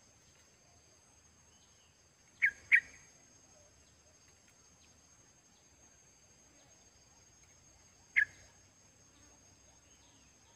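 Merbah kapur bulbul in a cage giving short, sharp calls: two in quick succession a couple of seconds in and a single one near the end. A steady high insect drone runs underneath.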